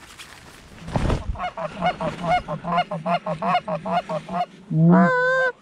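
A thump about a second in, then a fast run of goose-call clucks, about six a second, ending near the end in one long, loud moan: hunters calling on hand-held goose calls to geese that are coming in.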